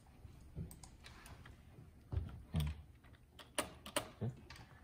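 Computer keyboard typing: irregular keystrokes, some in quick pairs, as ladder-logic instructions are entered.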